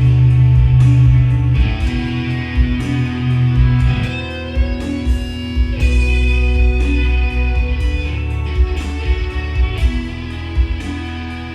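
Music led by guitar: sustained, ringing guitar notes over a heavy low bass line.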